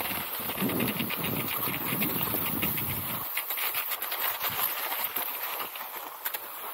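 Classic cross-country skis gliding and kicking in groomed tracks on packed snow, with pole plants: a steady hiss of snow crossed by quick, regular scrapes. A low rumble underneath stops about three seconds in.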